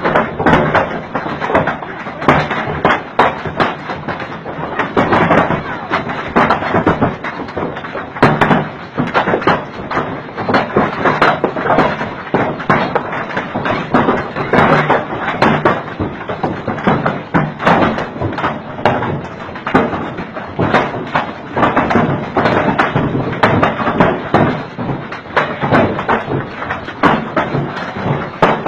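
Heavy rain falling hard, a dense, irregular run of taps and thuds.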